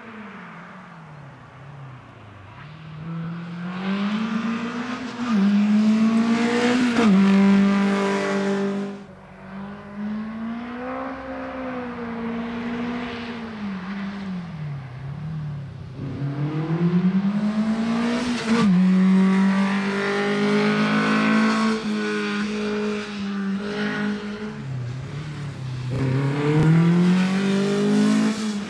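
Škoda 130 RS's rear-mounted 1.3-litre four-cylinder engine revving hard through a cone slalom. Its pitch climbs and drops again and again as the car accelerates, lifts off and shifts gear. It is loudest about a quarter of the way in and again near the end.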